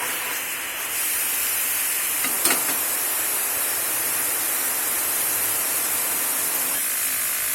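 Marinated chicken pieces sizzling steadily in hot oil in a pan, the hiss growing louder about a second in, with one light clink a little later.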